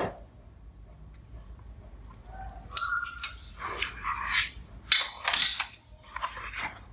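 A long steel ruler is slid and scraped across a cardboard sheet and laid down along its edge. Several short scraping, rustling sounds come in the second half, one with a brief metallic ring.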